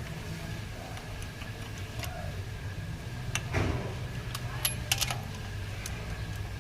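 A few light metallic clinks of tools and parts during car repair work, over a steady low hum.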